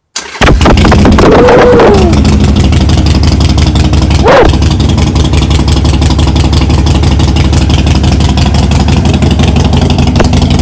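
Harley-Davidson Sportster's air-cooled 45-degree V-twin running loud and throaty through Vance & Hines slip-on mufflers. The sound comes in abruptly just after the start. The throttle is rolled up and back down about a second in, blipped once quickly at about four seconds, and then the engine settles into a steady idle.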